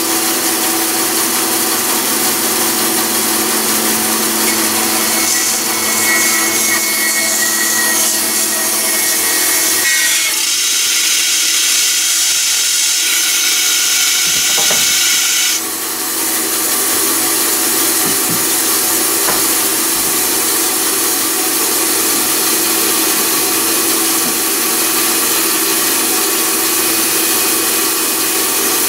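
Large floor-standing bandsaw running steadily and cutting through wooden boards, with a brief drop in level a little past halfway.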